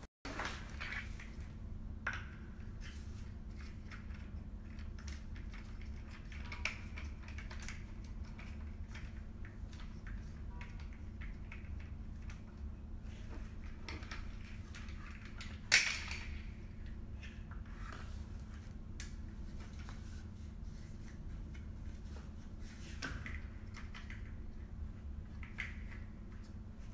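Handling noise from garment rack parts being unpacked and fitted together: scattered light clicks, clinks and rustles of plastic fittings, metal tubes and plastic wrapping, with one sharp knock about sixteen seconds in, over a steady low hum.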